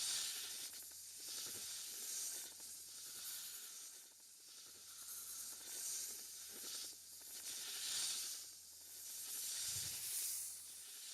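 Snake hissing: a run of hisses, each swelling and fading, one every second or two.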